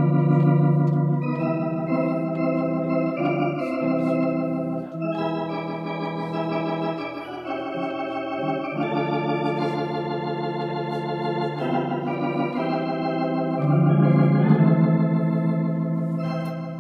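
Electronic organ playing sustained, wavering chords that change every second or two, over short bass notes in a steady beat. The chords swell louder about two seconds before the end, then begin to die away.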